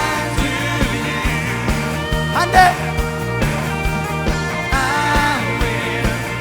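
Live worship band playing up-tempo rock music, with bending lead lines over bass and a steady drum beat.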